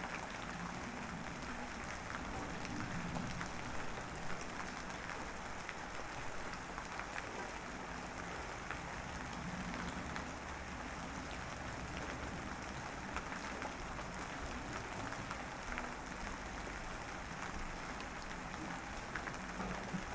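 Light drizzle falling steadily, a soft even patter of fine drops with scattered small ticks.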